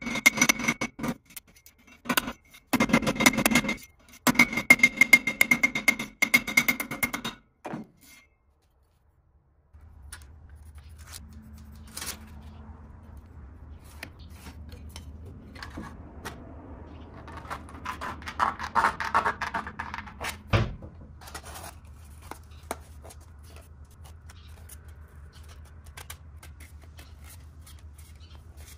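Rapid hammer blows on a steel pipe held in a vise, the pipe ringing with each strike. After a short gap come quieter scrapes and clicks of thin sheet metal being marked out and handled, with a scratchy stretch and one sharp knock.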